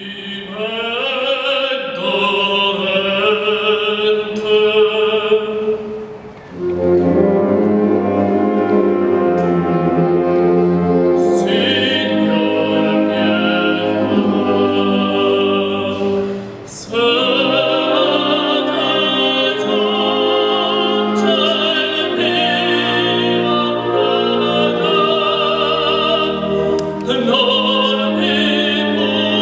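An operatic tenor sings with vibrato over a wind band of brass, woodwinds and percussion. The voice goes in long held phrases, broken by short pauses about a third and two thirds of the way through.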